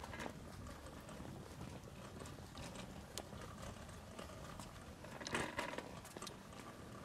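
Pet cart rolling over asphalt: a steady low rumble of the wheels, with scattered light clicks and rattles and a short cluster of knocks about five seconds in.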